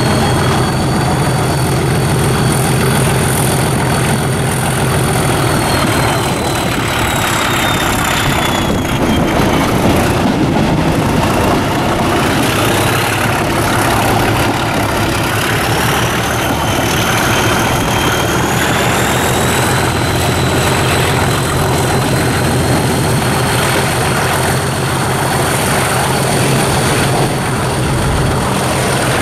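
English Electric Class 37 diesel locomotive 37025 under way, its English Electric 12CSVT V12 engine giving a steady low beat with a high turbocharger whistle. The whistle slides down in pitch a few seconds in, then climbs back up, over continuous running-train noise.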